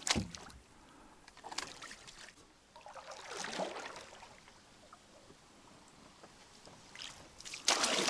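Rowing strokes: blades dipping and swishing through the water every couple of seconds, with water trickling between strokes; the strongest stroke comes near the end.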